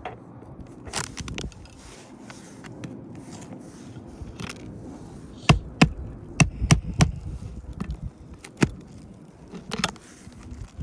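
A metal roofing scraper works under asphalt shingles to lift them and free the nails, scraping with scattered sharp knocks. A quick run of louder knocks comes about halfway through.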